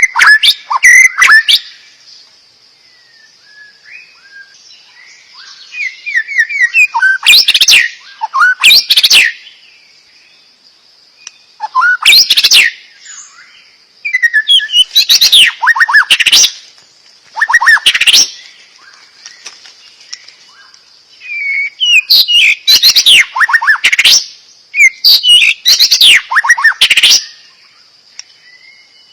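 A songbird singing loud, varied song, showing its full repertoire of song phrases. Each burst of quick sweeping and trilled notes lasts one to three seconds, with short pauses between bursts.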